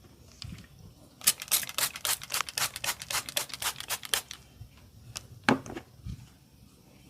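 Massage cracking: a rapid run of sharp, crisp snaps, about eight a second for three seconds, then one louder single crack a little later and a soft low thump.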